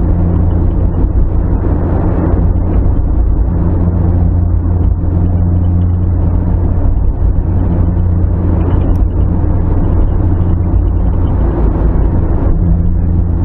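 Steady cabin noise of a car driving at motorway speed, heard from inside: a constant low engine and tyre rumble.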